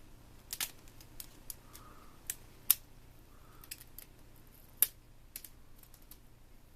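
Small wire cutters gripping and snipping at a plastic housing to pull out a brass standoff: a string of sharp, irregular clicks and snaps, the loudest two coming close to three seconds in and again near five seconds.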